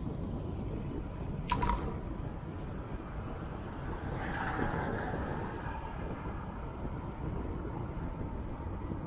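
Wind rumbling on the microphone with road noise during a ride, steady throughout. There is a sharp click with a short ring about a second and a half in, and a swell of hiss around four to five seconds in.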